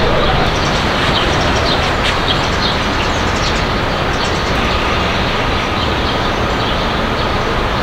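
Steady, loud outdoor rumble and rush, city traffic or wind noise, with a few faint short bird chirps over it.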